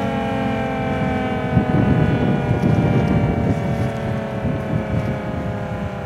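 Federal Signal Thunderbolt 1000T dual-tone siren winding down after its alert signal, both tones gliding steadily lower in pitch. A gusty low rumble swells from about one and a half seconds in and fades a few seconds later.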